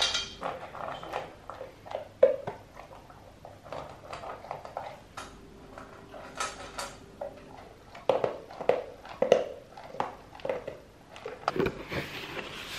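Dry kibble rattling into a bowl at the start, then a golden retriever crunching kibble and knocking against the bowl in irregular clicks and clatters. Near the end, cardboard flaps of a box being handled and opened.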